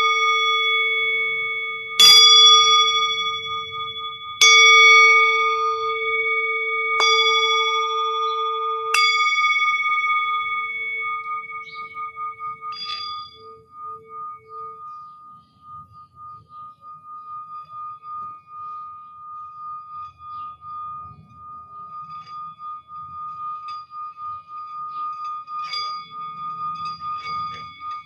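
Singing bowls struck one after another, four strikes in the first ten seconds, each leaving long ringing tones that slowly fade. A single wavering tone then rings on, with a couple of light strikes later.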